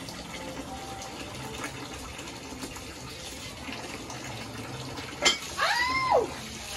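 Water from a hose trickling steadily into a plastic washtub during a child's bath. About five seconds in there is a sharp knock, followed by a short high voice sound that rises and then falls in pitch.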